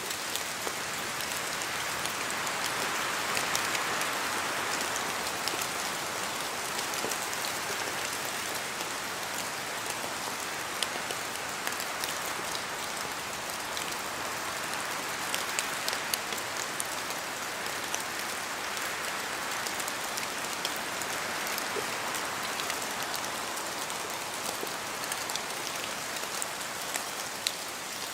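Steady rain in a spruce forest: a dense hiss with many close, sharp drop ticks from drops falling off the trees. Wind through the spruces swells the hiss twice, a few seconds in and again about two-thirds through.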